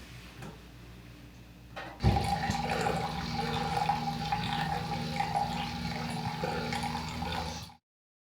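Water rushing, starting suddenly about two seconds in with a steady hum running through it, then cutting off abruptly near the end.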